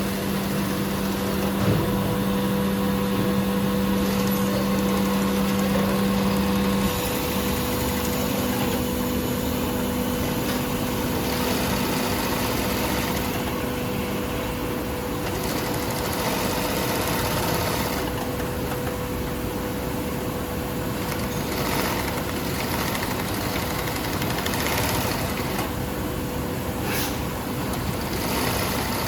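Industrial 8365 high post-bed sewing machine running, its motor giving a steady hum with a mechanical whirr over it. The hum shifts slightly higher about seven seconds in.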